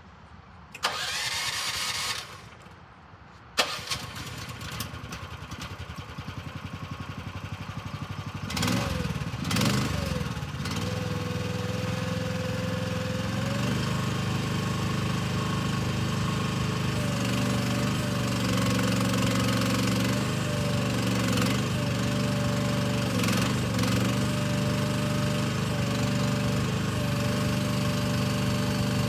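Mini excavator's small engine being cranked and started, catching after a few seconds, then running steadily. Its pitch dips and recovers several times as the machine is worked.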